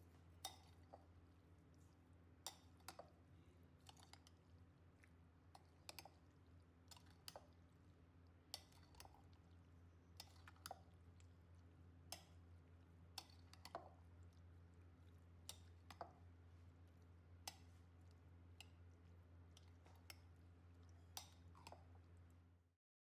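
A spoon stirring thick, creamy macaroni fruit salad in a glass bowl: faint, irregular clicks of the spoon against the glass, about one a second, over a low steady hum. The sound cuts off just before the end.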